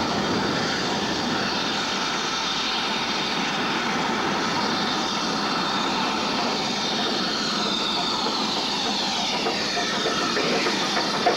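BR Standard Class 4 2-6-4 tank steam locomotive 80079 and its coaches running through the station: a steady rush of train noise whose higher tones fall in pitch as the engine draws level, with sharp wheel clicks near the end as it passes close.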